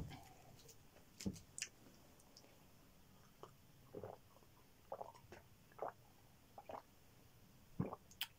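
Soft, scattered gulps and mouth sounds of a person drinking plain water from a glass, a few short separate swallows between quiet gaps.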